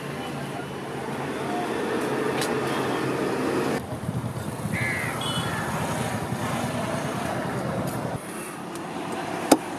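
Steady outdoor traffic noise with a short bird call about five seconds in. Near the end a single sharp chop of a butcher's cleaver lands on the chopping block.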